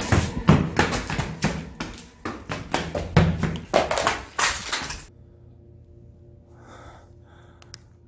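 Rapid, irregular knocking, bumping and rustling of a handheld camera being jostled, which stops abruptly about five seconds in. After that, only a low steady hum with a few faint, indistinct sounds and one small click.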